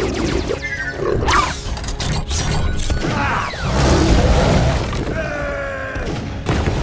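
Cartoon fight sound effects over background music: a quick run of thuds and hits about a second in, followed by grunting, cry-like creature voices.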